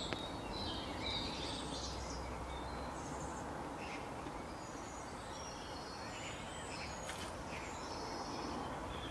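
Birds chirping and calling on and off over a steady hiss of outdoor background noise.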